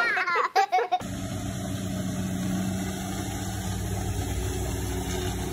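Motorboat engine running with a steady low drone.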